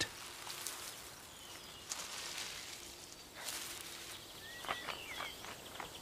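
Faint outdoor nature ambience: soft rustling of twigs and leaves swelling twice, then a few short, faint bird chirps near the end.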